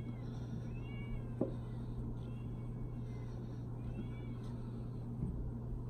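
A cat meowing through a closed glass door, begging for food: several short meows, each rising then falling in pitch, about a second and a half apart.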